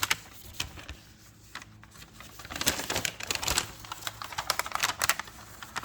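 Paper rustling and crinkling as a folded instruction leaflet is handled and unfolded. It comes in irregular clusters of crackles and small clicks.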